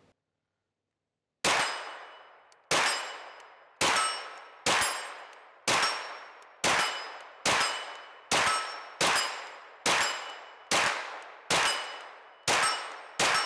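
CZ Scorpion 3 Plus 9mm pistol-caliber carbine fired semi-automatically: fourteen shots at a steady, unhurried pace of about one a second, starting about a second and a half in. Each shot trails off with a ringing tone over about a second.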